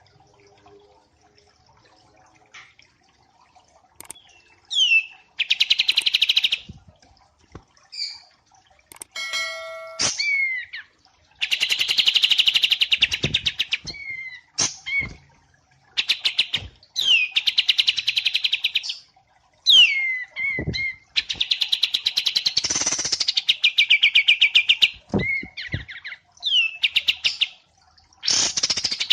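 Songbird song from a masteran training track: fast rattling trills high in pitch, each lasting a second or two, several opened by a quick downward-sliding whistle, repeating after short gaps.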